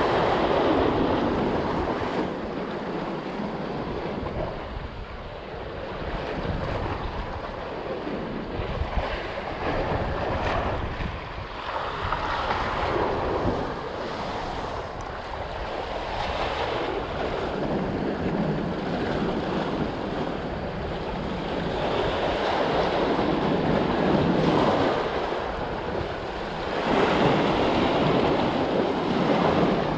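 Sea waves washing against shore rocks, swelling and fading every few seconds, with wind buffeting the microphone.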